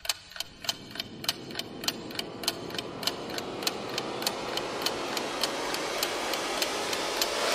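Steady clock-like ticking, about three ticks a second, under a rising swell of noise that grows steadily louder.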